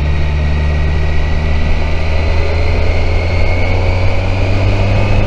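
Kawasaki Versys 1000 SE's inline-four engine running steadily while the motorcycle cruises, its pitch creeping up slightly, with wind rushing over the microphone.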